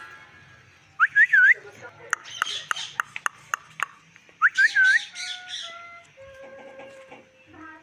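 Pet parrot calling twice: a short wavering whistle followed by harsh, noisy squawking chatter, about a second in and again about four and a half seconds in.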